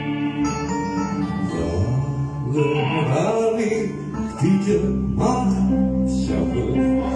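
Live band playing a Greek song on electric guitars and drums, with a male voice singing over the guitars partway through.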